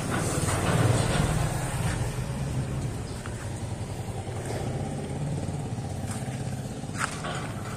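A motor vehicle engine idling, a steady low hum that swells slightly about a second in, with a single light knock near the end.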